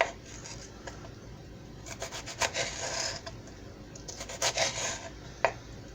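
Kitchen knife slicing bell peppers thin on a cutting board: a sharp knock at the start, two short runs of quick cutting strokes, and a single sharp tap near the end.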